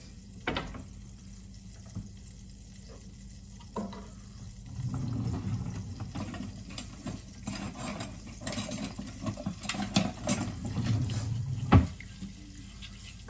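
A wooden spoon stirring and scraping in a stainless steel frying pan, a rough, irregular scraping with scattered small clicks that begins about a third of the way in. A single sharp knock near the end is the loudest sound.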